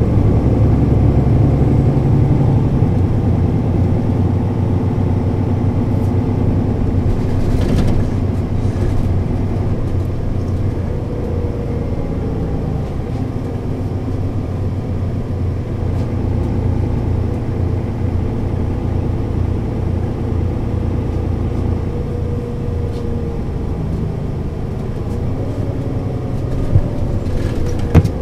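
Diesel straight-six engine of a Mercedes-Benz O 530 Citaro city bus running, its pitch shifting slowly up and down with engine speed. A couple of short sharp knocks come near the end.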